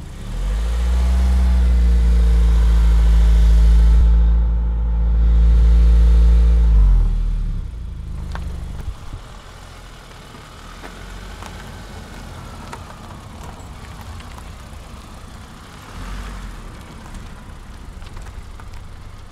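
Car engine and road noise while driving. The engine rises in pitch as it speeds up, runs steadily, then eases off about seven seconds in, and the car carries on with a quieter low rumble as it slows.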